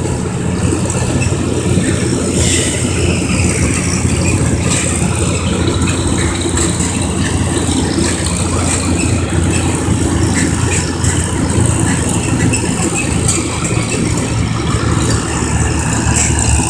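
Tractor engine running steadily while driving along the road, heard from on board, with metal rattling over the top.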